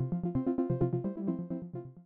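Background music with quick, evenly paced notes, fading out near the end.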